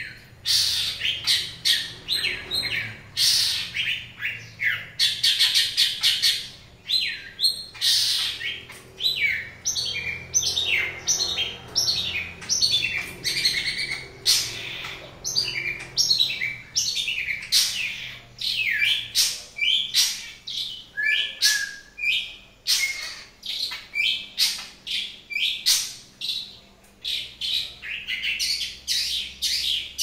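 Caged long-tailed shrike (cendet) singing: a continuous run of quick, sharp chirps and short chattering phrases with barely a pause.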